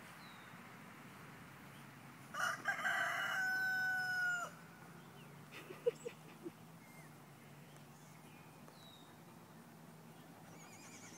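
A rooster crows once, about two seconds in, the crow ending on a long held note that drops at its close. A few short sharp sounds follow about a second later, and small birds chirp faintly.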